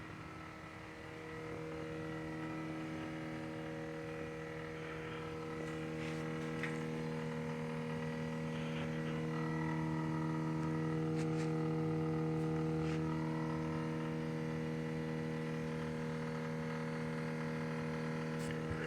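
Steady electrical hum with several overtones from a switched-off Scion tC, swelling slightly midway, with a few faint ticks.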